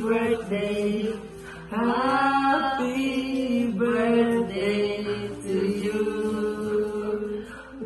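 A few voices singing a slow birthday song together, in long held notes.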